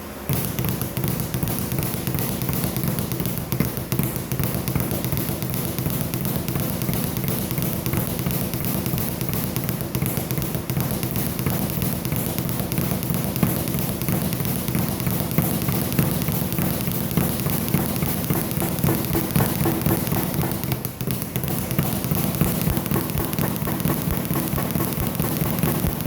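Air hammer running in a rapid, continuous stream of blows, driving out rivets. It starts suddenly and cuts off near the end.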